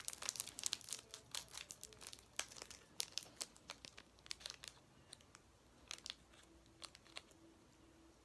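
Plastic wrapper of a polvorón cookie crinkling and tearing as it is unwrapped by hand: a dense run of small crackles that thins out to a few scattered ones after about five seconds.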